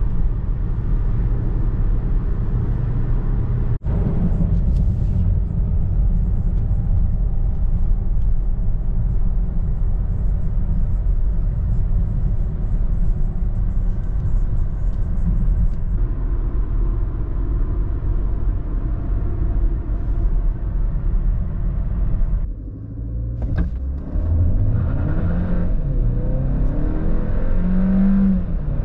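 Inside the cabin of a Hyundai Tucson 1.6 T-GDI mild hybrid, a steady low road and tyre rumble while cruising and coasting. About 23 s in it goes quieter for a moment. Then the turbocharged four-cylinder revs hard under full throttle, its pitch climbing and stepping through the gear changes of the dual-clutch gearbox.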